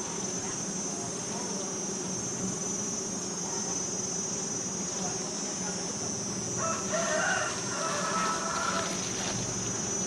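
Steady high-pitched chorus of insects, with a faint drawn-out call about seven seconds in.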